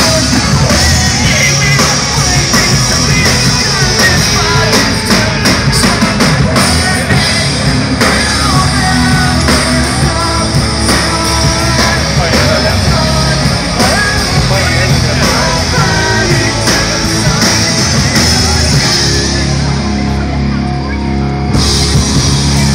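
Loud rock music with drum kit, guitar and singing, played without a break; the treble drops away briefly near the end, making it sound muffled for a moment.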